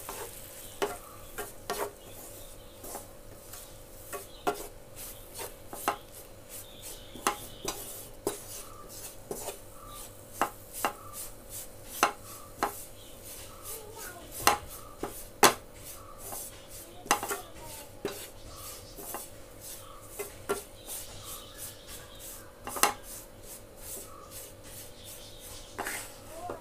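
A spatula scraping and knocking against a non-stick frying pan, stirring flour cooking in melted butter. The clicks and scrapes come irregularly, about one or two a second.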